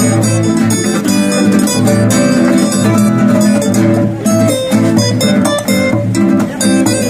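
A steel-string acoustic guitar and a nylon-string classical guitar playing an instrumental duet together, amplified, with rapid plucked notes over a steady rhythm.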